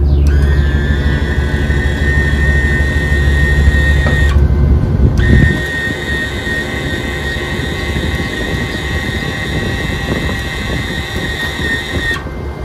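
Wire feed motor of a Titanium Easy Flux 125 flux-core welder, run with the cold wire feed button to push .035 wire up through the gun lead. It gives a steady high whine that rises as the motor spins up, stops for about a second around four seconds in, then runs again until just before the end. A low rumble runs under it and drops off about halfway through.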